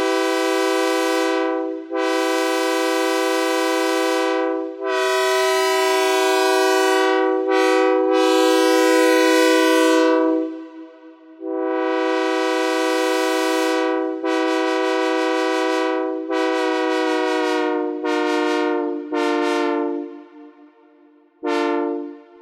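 Synthesized recreation of a Nathan Airchime K3LA raised-letter locomotive horn sounding a horn show: three long blasts, a short break, then a string of shorter blasts and a final short toot.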